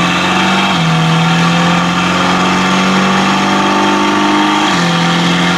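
Decatted Mercedes-AMG GT Black Series twin-turbo flat-plane-crank V8 running steadily on a chassis dyno under gentle load while warming up. Its pitch steps down slightly about a second in and again near the end.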